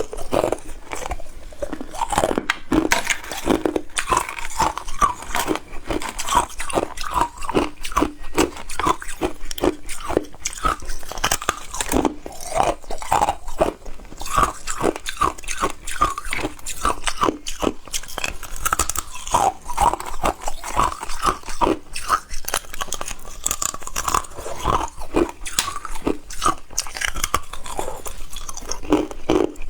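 Ice cubes being bitten and crunched between the teeth, a steady run of sharp crunches.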